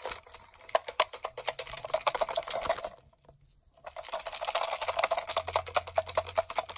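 Paper entry slips rattling inside a lidded container shaken hard by hand to mix them for a draw, in two fast bouts with a pause of about a second between them.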